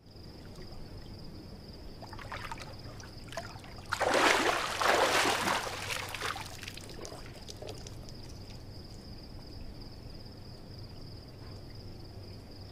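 Pool water lapping and sloshing as a swimmer moves, then a loud stretch of splashing and water pouring off as she climbs out of the pool about four seconds in, lasting some two seconds. A few faint drips and splashes follow.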